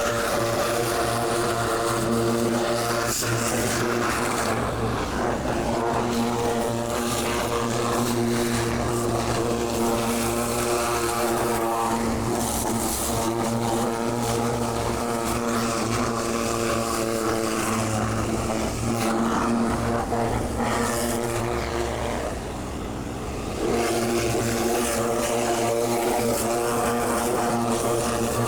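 Magnum 4000 Gold hot water pressure washer running steadily, its engine droning and the spray hissing. It drops off and eases briefly about 22 seconds in, then picks back up.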